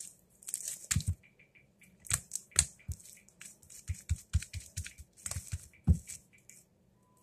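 Slime being stretched, folded and pressed down on a countertop by hand: sticky clicking and crackling with soft thumps each time it hits the counter, again and again.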